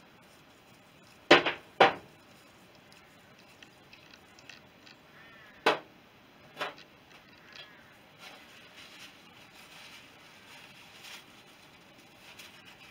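Sharp clinks and knocks of metal parts and tools being handled while the primary side of a BSA B31 engine is dismantled: two loud knocks close together early on, two more around the middle, then light scattered clicks.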